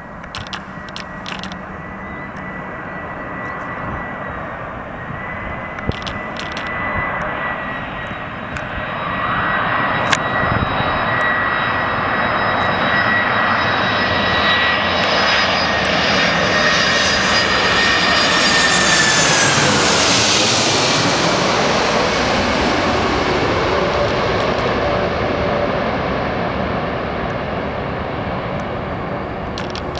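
Four-engined Boeing 747 on final approach passing low overhead: a steady high engine whine over a jet rumble grows louder and louder, the whine falls in pitch as the aircraft passes about two-thirds of the way through, and the rumble then slowly fades as it flies away.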